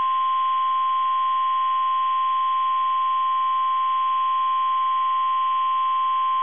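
NOAA Weather Radio's 1050 Hz warning alarm tone: a single steady, unbroken beep, the alert signal that announces an emergency message such as a tornado watch.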